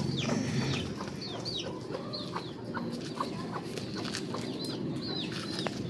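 A flock of chickens on a chicken farm calling and clucking, many short overlapping calls.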